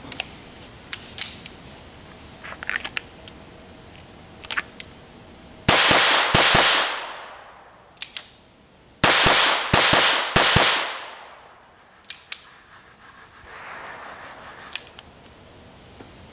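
Gunshots fired in two quick strings of several shots each, about three seconds apart, each shot trailing off in an echo. There are light clicks and knocks before and between the strings.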